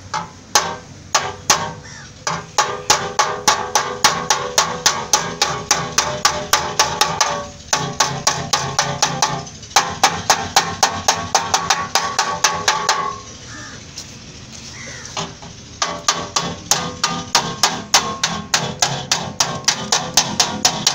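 Small hammer tapping a dented steel front crossmember against a hand-held steel dolly, quick ringing metal taps about three to four a second, stopping for about two seconds past the middle. This is dry denting, straightening the metal without repainting.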